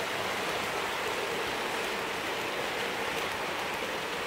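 Hornby OO gauge Class 43 HST model train with a long rake of coaches running past on the track: a steady rolling hiss of wheels on the rails.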